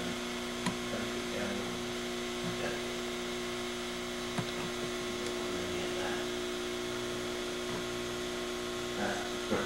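Steady electrical mains hum, with a couple of faint clicks.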